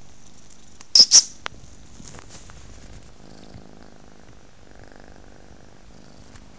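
British Shorthair kitten purring, with two sharp clicks about a second in that are the loudest sounds.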